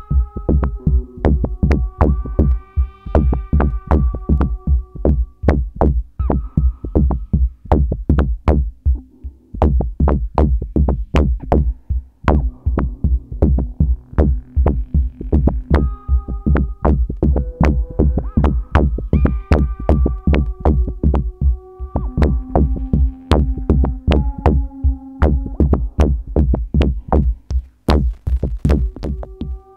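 Live electronic music from modular synthesizers and a drum machine: a dense run of sharp, clicky drum-machine hits over a deep steady bass, with held synth notes that change pitch every few seconds.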